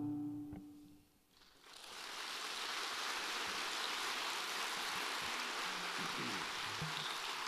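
The last note of an acoustic guitar dies away, and after a brief silence an audience starts applauding about two seconds in, steady applause that fills the rest of the time.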